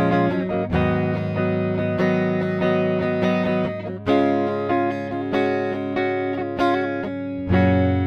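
Sterling by Music Man SUB AX3 electric guitar played on its neck humbucker: picked and strummed chords in a steady rhythm, ending with a chord struck near the end and left ringing.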